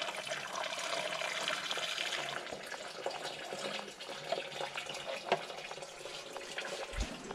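Acetone solvent poured from a metal can into an engine's oil filler opening, a steady trickling splash, to flush drill shavings out of the oil pan. A few light clicks of the can and parts come through.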